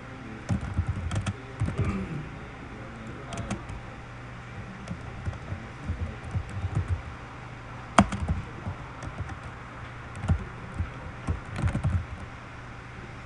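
Typing on a computer keyboard: irregular runs of key clicks with short pauses between them, and one sharper click about eight seconds in.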